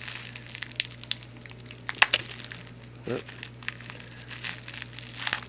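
Knife cutting through packing tape on a box, with the packaging crinkling and scattered sharp clicks and scrapes.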